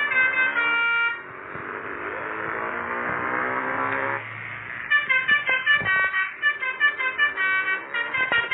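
Motorcycle-mounted telolet basuri multi-tone horn playing a tune in short notes that step from pitch to pitch, broken about a second in by a rushing stretch with faintly rising pitch that cuts off near the middle, before the notes start again.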